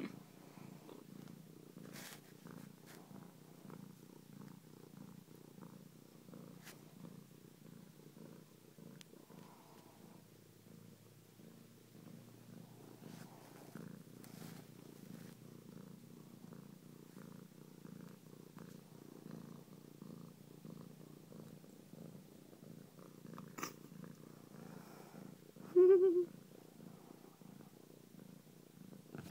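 Domestic cat purring steadily, a low, evenly pulsing purr close to the microphone. Near the end comes one short, louder pitched call.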